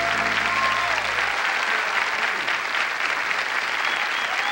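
Studio audience applauding, with the last held notes of the song stopping about a second and a half in.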